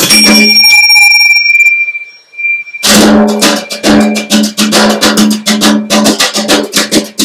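Improvised music on harp: fast repeated plucked notes over a steady hum. About half a second in the notes stop, leaving a single high ringing tone. Just before three seconds in, the fast plucking starts again.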